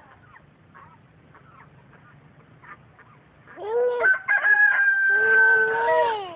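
Rooster crowing once, starting about three and a half seconds in: a short first note, then a long held note that drops in pitch at the end.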